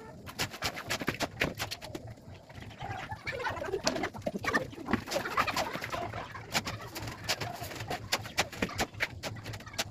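Irregular sharp taps and clicks from hand work on the gate and its pillar, with birds calling in the background.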